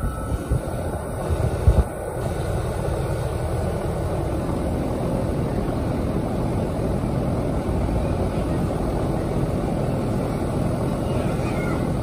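2010 Trane XB13 two-ton heat pump outdoor unit running in cooling mode, with its Climatuff reciprocating compressor and Genteq condenser fan motor making a steady rushing hum. A few low thumps come in the first two seconds.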